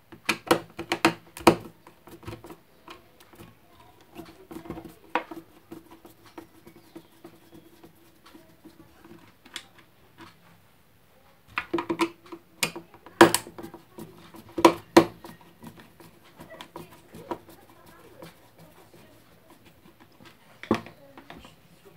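Screwdriver clicking and scraping at the screws of a plastic electric kettle housing, with taps and knocks of the plastic shell being handled. The clicks come in clusters near the start, in the middle and near the end, over a faint steady hum.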